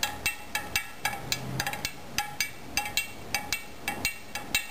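A stirring utensil clinking against the side of a glass jar as vinegar is stirred, about four evenly spaced ringing clinks a second.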